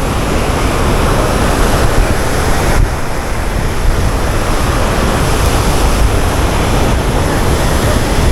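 Loud, steady rush of water churning out of a dam's release outlet into the spillway channel.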